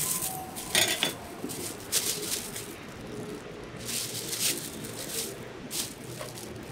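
Thin plastic bags rustling, with a metal scraper clinking and scraping against a wooden board as blocks of tofu are lifted and bagged, in irregular short bursts.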